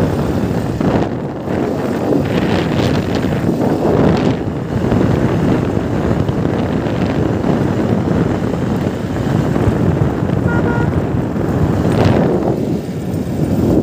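Wind buffeting the microphone while riding along a road, over the rumble of the moving vehicle.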